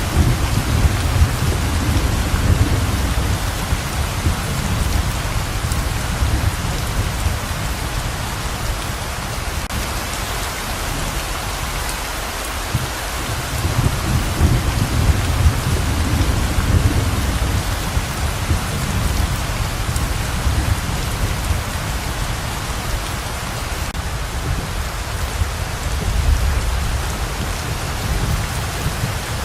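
Heavy rain pouring steadily. Low rolling thunder swells up and fades three times: near the start, about halfway through and near the end.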